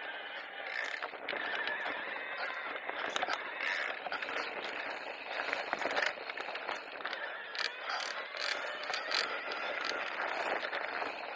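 Electric mountain bike rattling and clicking as it rolls over rough ground, many sharp clicks and knocks over a steady rolling noise.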